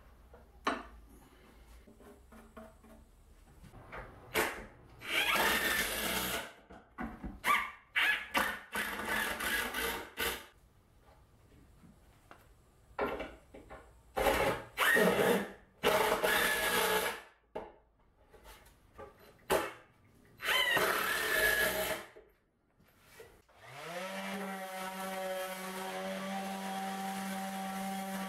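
Cordless drill-driver driving screws into plywood in several bursts of one to three seconds each. Near the end a motor spins up and runs with a steady hum.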